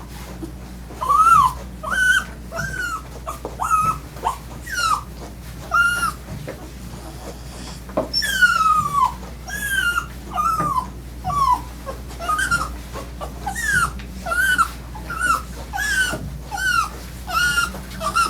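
A dog whining over and over in short, high, arching cries, one or two a second, with one longer whine that falls in pitch about eight seconds in.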